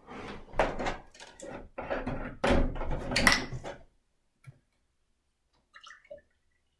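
Kitchen clatter of a drinking glass and dishes being handled and set down, a busy run of knocks and clinks for about four seconds, followed by two faint clicks.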